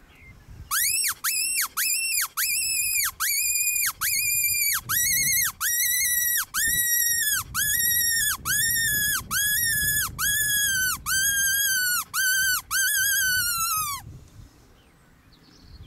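Predator call squealing in a long series of about twenty drawn-out, high squeals, each rising and then falling in pitch, the series slowly getting lower. It stops near the end.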